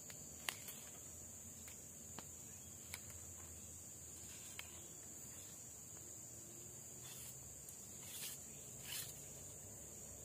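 Steady high-pitched drone of forest insects, such as crickets. A few faint clicks sound in the first three seconds, and two short rustles come near the end.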